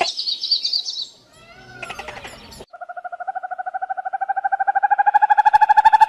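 Animal calls, edited back to back: a short high chirping trill, then from about halfway a long, rapidly pulsing trill that grows steadily louder.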